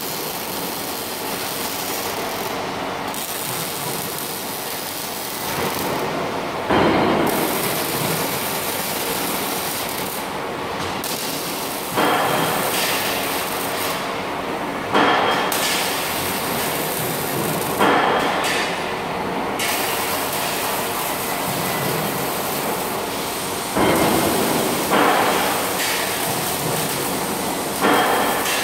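Robotic arc welder welding stamped steel parts: a continuous crackling, sizzling arc noise that stops and restarts as the robot moves from seam to seam. Each restart comes in suddenly louder, about seven times, every few seconds.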